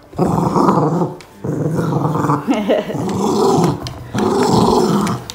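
A poochon dog play-growling over a ball: four rough growls of about a second each, with short breaks between them.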